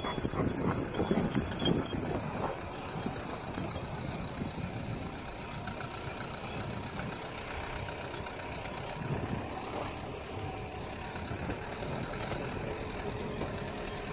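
Car creeping along a dirt forest track, its engine running at low speed and its tyres crackling over the ground, with a steady high-pitched insect buzz throughout. Louder knocks and crunches in the first couple of seconds, then an even rumble.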